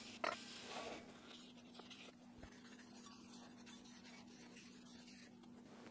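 A few faint scrapes and clicks as metal winch parts are handled in the first second, then near silence with a faint steady hum.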